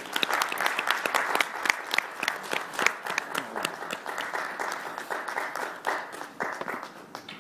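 Audience applauding, with many hands clapping and single sharp claps standing out; the applause dies away near the end.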